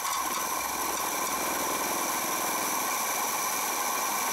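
Razor E300's electric motor and chain drive running flat out with the rear wheel spinning free at about 1,245 rpm, fed 48 V through a 1000 W controller in its 'sport' mode; a steady whine that holds one pitch.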